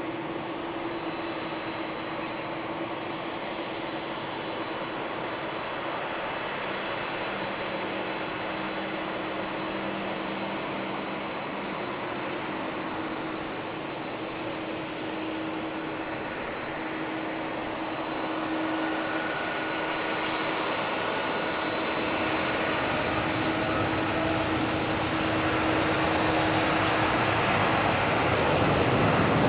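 Boeing 787-8's turbofan engines at takeoff power: a steady jet roar with faint whining tones, growing louder over the second half.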